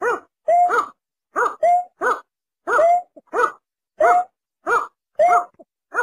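Snipe calls played as a hunter's lure recording: short, loud, pitched call notes repeated about twice a second, some held level and some rising then falling.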